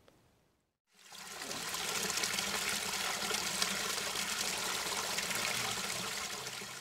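Small woodland stream: a thin spill of water trickling and splashing over a root ledge into a shallow pool. It fades in about a second in and runs steadily.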